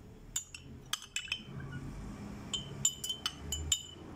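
Metal spoon clinking against the inside of a glass tumbler as it scoops soaked rose petals out of the water: a quick run of about five clinks, a pause of about a second, then about seven more.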